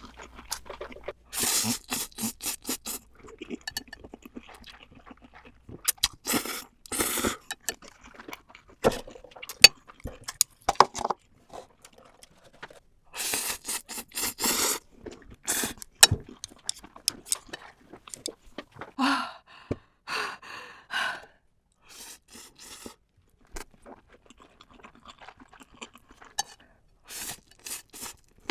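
Close-miked eating of spicy noodles: repeated slurps of about a second each, chewing and crunching, and sharp clicks in between.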